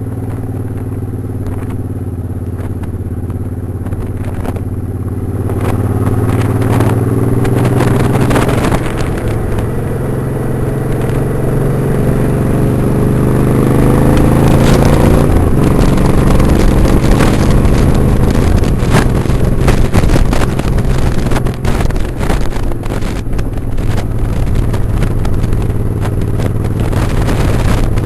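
Motorcycle engine running under way, its pitch rising steadily for about ten seconds as the bike accelerates. About halfway through, wind buffeting the microphone at speed grows louder and covers the engine.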